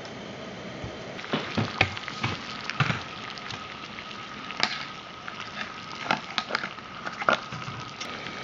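Water in a pot on a soda-can alcohol stove close to the boil: irregular bubbling pops over a steady hiss, starting about a second in.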